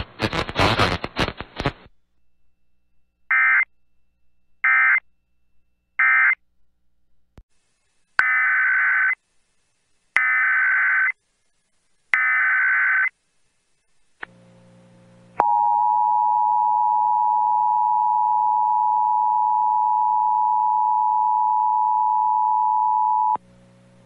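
Emergency Alert System signalling. First come three short bursts of SAME digital data (the end-of-message code) and then three longer, about one-second data bursts (the header of the next alert). After that the steady two-tone EAS attention signal holds for about eight seconds over a faint low hum.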